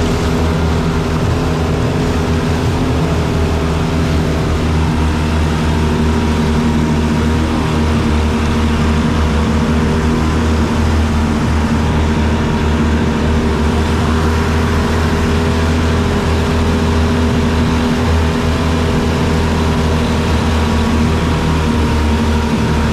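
Twin Honda outboard motors running steadily at cruising speed, pushing a small boat, with the rush of churned water from the wake.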